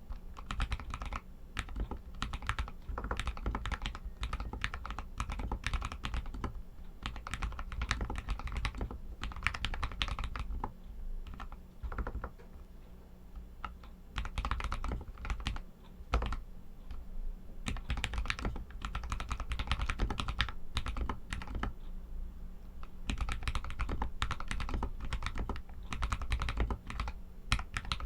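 Royal Kludge RK61 mechanical keyboard with Outemu Red linear switches being typed on, in a fast, continuous run of keystroke clacks. The typing thins out briefly twice.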